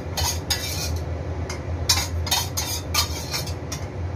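Metal utensils clinking and scraping against a pan and dishes, in a scattered run of short clicks over a steady low hum.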